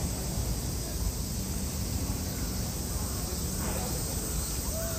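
City street ambience: a steady low rumble of traffic and crowd, with faint voices of passers-by near the end.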